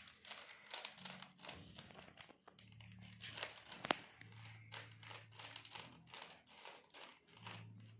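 Faint, rapid, irregular plastic clicking of a Rubik's cube as its layers are turned quickly by hand, with one sharper click about four seconds in.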